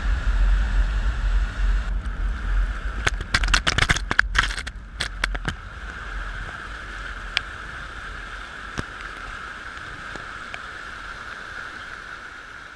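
Steady rush of floodwater, with wind buffeting the microphone for the first half and a quick run of clicks and crackles in the middle.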